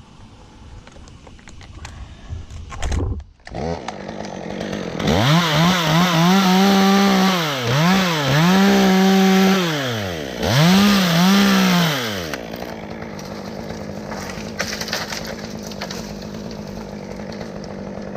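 Chainsaw revved to full throttle three times, each for a couple of seconds with a brief dip in pitch between, then dropping back to a steady idle.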